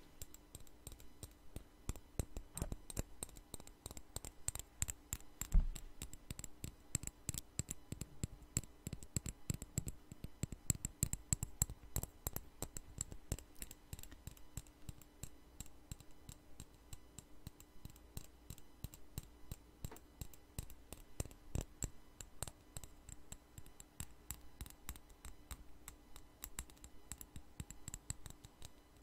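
Fingernails tapping fast and irregularly on a small hard cosmetic tube held close to a microphone: a dense run of light clicks, with one louder knock about five and a half seconds in.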